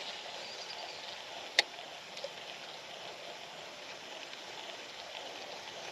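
Quiet outdoor background hiss with one sharp click about a second and a half in and a fainter tick just after.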